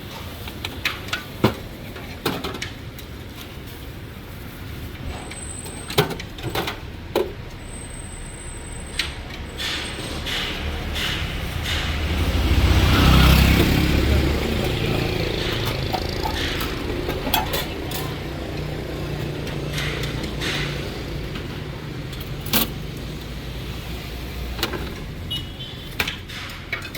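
A motor vehicle passes along the street, swelling to its loudest about halfway through and then leaving a low hum, while scattered sharp clicks and knocks of cooking utensils come from the pancake stall.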